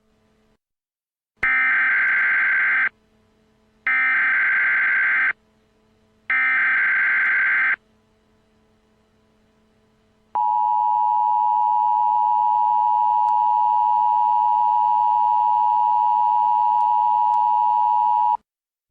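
Emergency Alert System header: three buzzing bursts of SAME data tones, each about a second and a half long, a second apart. About ten seconds in, the EAS attention signal starts: a steady two-tone beep held for about eight seconds, which then cuts off.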